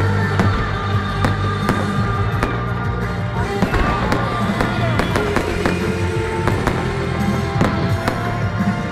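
Fireworks going off in quick succession, many sharp bangs and crackles, over music with long held notes.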